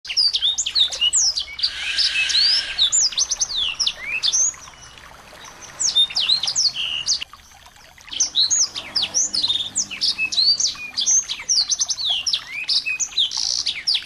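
Small songbirds chirping and twittering in rapid, high-pitched sweeping notes. They come in dense runs, with two short lulls, one about a third of the way in and one about halfway.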